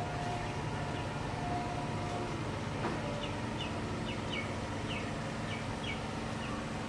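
Steady low machine hum. In the second half, a series of short high falling chirps comes about two a second.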